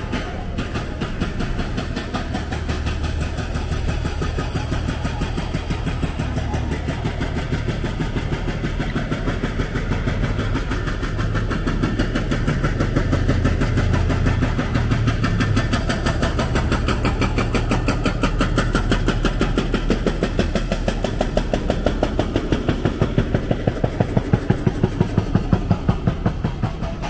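Vehicle engine running close by in street traffic: a steady low hum with a fast, even pulsing that grows louder near the end.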